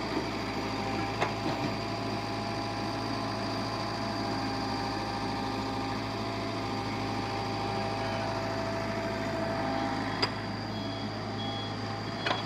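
Construction machinery engine running steadily, with a few short knocks. A truck's reversing beeper starts sounding near the end.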